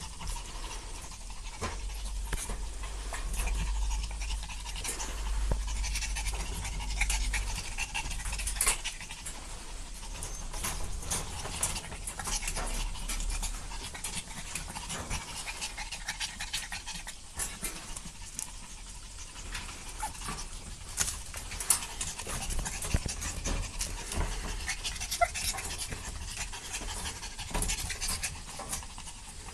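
Chihuahua puppies panting and scuffling in rough play, with many short clicks and scrapes throughout.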